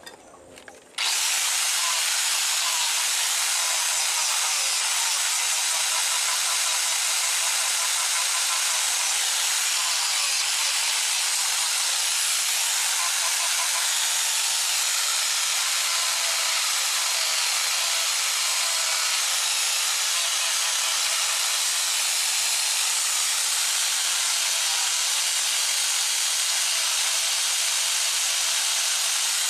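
Makita angle grinder with a sanding disc grinding and sanding a sonokeling (Indonesian rosewood) knife handle. It is a steady, even, high hiss that starts suddenly about a second in and holds level.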